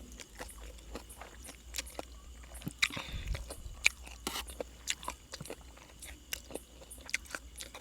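Close-up chewing and crunching of a spicy Thai glass-noodle and chicken-feet salad, with irregular crisp crunches through the mouthful. Faint cricket chirping runs steadily underneath.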